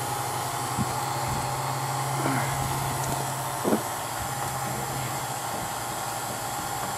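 Refrigeration vacuum pump running steadily while evacuating a mini split's refrigerant line sets, which have been pulled down to 30 inches of mercury. A couple of light knocks come over the steady hum.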